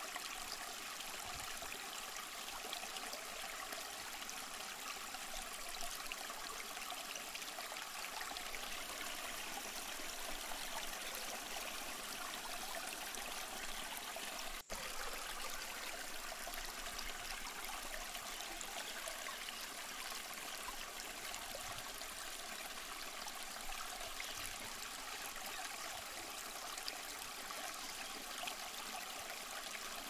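A shallow stream running over rocks, a steady, even water sound, with a split-second dropout about halfway through.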